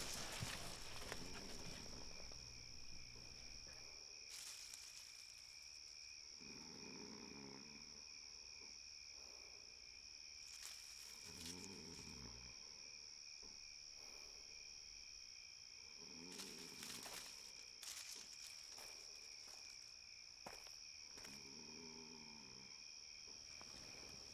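Faint, steady chirring of crickets, with four slow, low snores from a sleeping person, roughly every five seconds.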